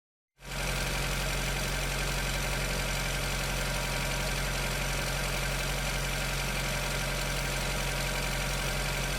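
Engine idling steadily, fading in just after the start.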